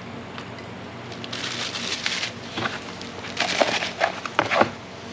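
Cardboard box and packaging being handled and rummaged through, rustling and crinkling in several bursts, with a few sharp crackles near the end.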